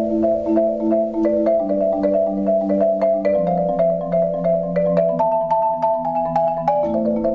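Marimba played with mallets: a fast, repeating figure of upper notes over held lower notes, at a steady pace and level.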